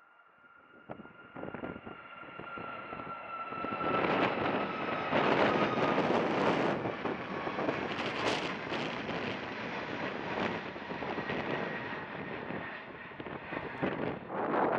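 Boeing 737 MAX 8's CFM LEAP-1B jet engines at takeoff power as the airliner climbs out: a high fan whine that drifts slightly lower in pitch, under a rushing jet noise that builds over the first few seconds and then stays loud.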